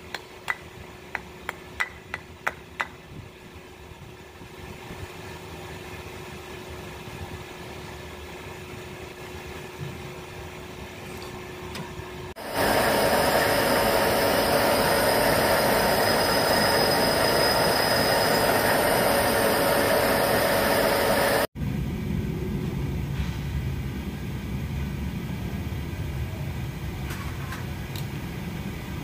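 A quick series of about eight sharp taps over a steady hum. Then a loud power tool runs steadily for about nine seconds and cuts off abruptly. A lower machine noise follows.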